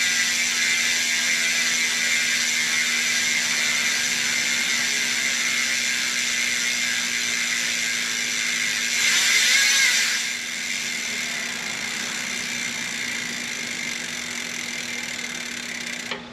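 Hunt TrailWide rear hub freewheeling, its pawls buzzing as a steady high ratchet while the rear wheel spins freely with the cranks still. It swells louder for about a second midway, then slowly fades as the wheel slows, ending with a click near the end.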